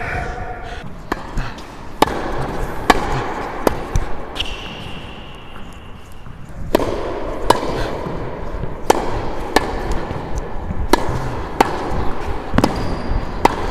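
Tennis balls struck by rackets and bouncing on an indoor hard court during a rally: sharp, echoing pops, roughly one a second.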